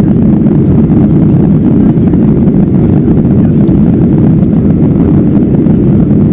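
Loud, steady cabin drone of a Boeing 737-800 in flight, heard from inside the cabin: its CFM56-7B turbofan engines and the rush of air past the fuselage, low and even with no change.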